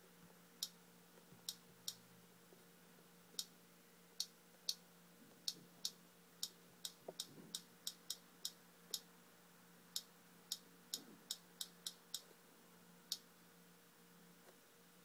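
Taps on a phone's touchscreen: about two dozen short, sharp clicks at an irregular pace, bunched closer together in the middle of the stretch, over a faint steady hum.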